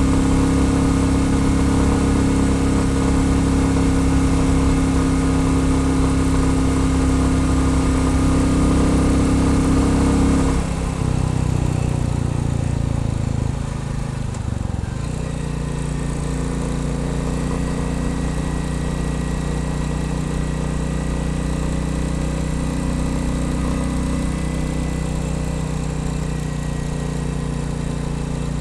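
Royal Enfield Bullet 350's single-cylinder engine running on the road at steady revs. About ten seconds in the revs drop and the pitch falls over a few seconds as the bike eases off, then it settles at a steady lower engine note.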